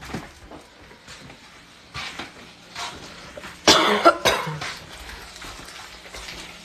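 A person coughing: two loud coughs in quick succession about halfway through.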